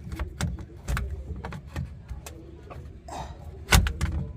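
Flat-head screwdriver prying at a stubborn fuel tank pressure sensor in its mount: a string of irregular clicks and knocks, the loudest a little before the end.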